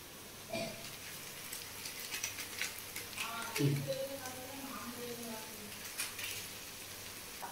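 Goat intestine and onions frying in a steel kadai over a gas flame: a soft sizzle with scattered small crackles, as red chilli powder is added to the pan. A faint voice is heard in the middle.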